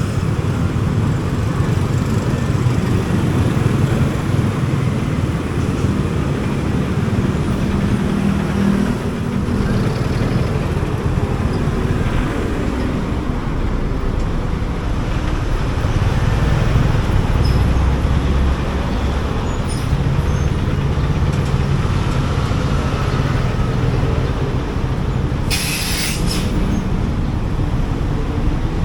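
Motorcycle running through city traffic, heard from the rider's seat with road and wind noise and surrounding vehicles; a brief hiss cuts in near the end.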